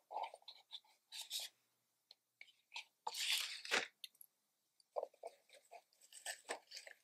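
Quiet handling of a paper-covered cardboard pen box as it is opened: scattered light rustles and taps, a longer sliding scrape about three seconds in as the lid comes off, then soft rustling as the foam insert is lifted out.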